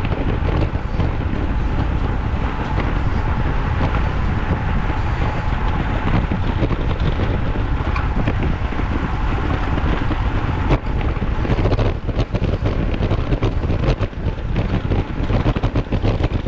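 Loud, steady wind buffeting the microphone, heaviest in the low rumble, with a few sharp knocks from about eleven seconds in.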